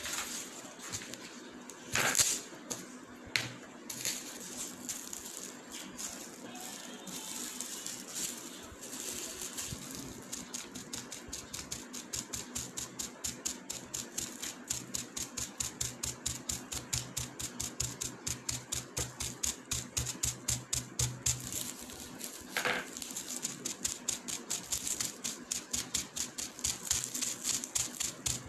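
Paint-loaded bubble wrap dabbed over and over onto paper on a wooden table: short, even taps at about three or four a second, settling into a steady rhythm about ten seconds in. A few separate knocks come between two and four seconds in.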